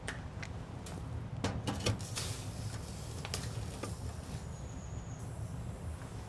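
Scattered light clicks and knocks, with a short rustle about two seconds in, over a low steady rumble; a faint high thin tone comes in after about four and a half seconds.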